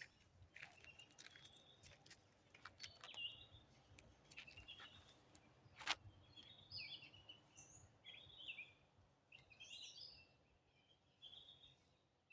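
Faint birdsong: short chirping and trilling phrases repeating throughout, with scattered small clicks and one sharp click about six seconds in.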